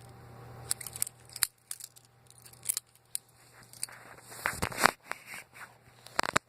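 Butterfly knife (balisong) being flipped by hand: its handles clack and click together in irregular sharp metallic clicks, with a tight cluster of louder clacks about four and a half seconds in and another sharp clack near the end.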